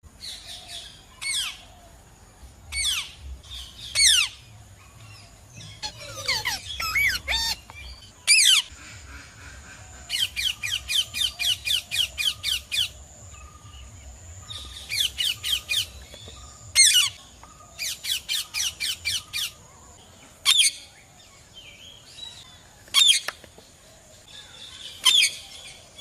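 Parrots squawking: sharp, piercing calls, some single and some in rapid runs of about four a second, with a faint steady high whine beneath.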